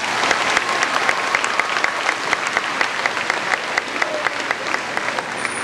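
Stadium audience applauding, with one set of claps close to the microphone standing out as sharp, regular claps a few times a second.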